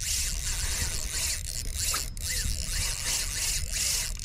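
Fishing reel ratcheting in a rapid, steady clicking, over a low rumble of wind on the microphone; it breaks off for an instant about two seconds in.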